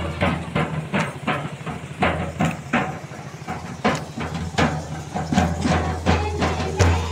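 Large double-headed drum beaten in a steady rhythm, about two strokes a second, with a deep booming low end.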